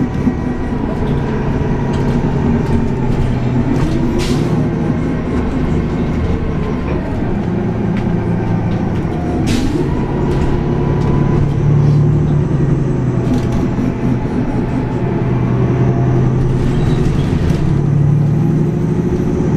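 A 2015 NovaBus LFS city bus with a Cummins Westport ISL-G natural-gas engine and Allison automatic transmission, heard from inside the cabin while driving: a steady engine drone that rises and falls gently in pitch with road speed. Two brief sharp noises stand out, about four and ten seconds in.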